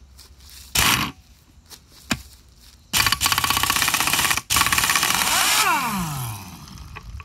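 Pneumatic wrench on an air hose loosening a check-valve plug on a pressure-washer pump head: a short blip of the trigger about a second in, then a fast rattling run of a few seconds with one brief break. Near the end the rattle gives way to the tool's motor winding down in falling pitch as the plug comes free.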